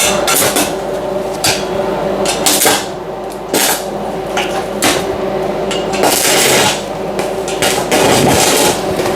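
Arc welding on a steel door frame: a string of short crackling bursts, like tack welds, and a couple of longer welds of under a second each, over a steady hum.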